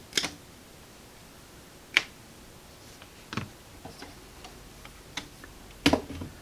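Scattered sharp clicks and light taps a second or two apart, the loudest about two seconds in and near the end: hands and tools working on a radio chassis while its cut-off power cord is moved out of the way.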